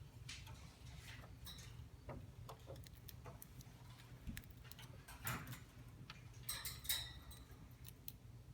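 Budgie moving about on and around its cage: faint, irregular light clicks and taps, with a few brief high chirps a little past halfway.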